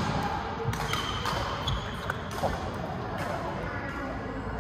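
Badminton play on court: sharp clicks of rackets striking the shuttlecock and footfalls on the court floor, several a second, with voices in the background.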